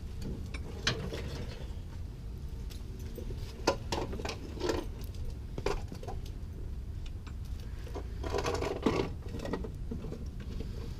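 Hand tools working on the truck's suspension bolts: irregular metallic clicks and clinks, with a denser run of ratchet-like clicking about eight seconds in.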